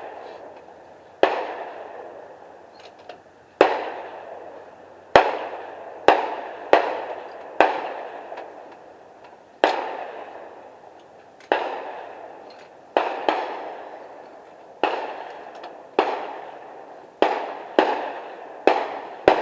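Gunshots, about sixteen at irregular intervals and some less than a second apart, each sharp crack trailing off in an echo. The pace fits several shooters firing along the range.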